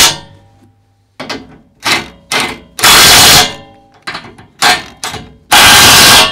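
DeWalt 20V cordless impact wrench hammering as it tightens the bolts on a fifth-wheel hitch's legs. It runs in three loud bursts of under a second each, one near the start, one about three seconds in and one near the end, with several short trigger taps between them.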